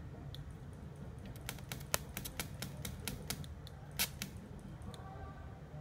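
Rapid, fairly even clicking, about six clicks a second for around three seconds, over a steady low hum, from a TIG welding setup switched by an automatic pulse (weld-ripple) unit.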